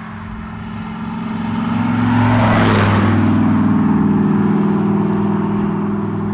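A motor vehicle driving past close by, its engine hum and tyre rush swelling to a peak about two and a half seconds in, then staying loud as traffic goes on.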